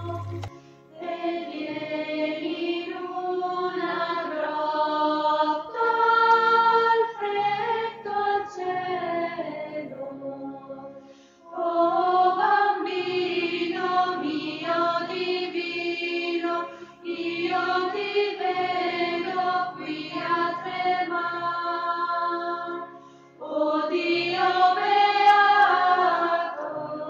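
Background music of singing voices in a slow melody, in phrases broken by short pauses every few seconds.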